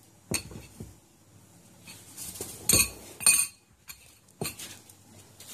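An elephant's trunk feeling across a laid breakfast table, knocking plates and cutlery together. It makes a handful of separate sharp clinks of crockery and metal, the loudest two about three seconds in.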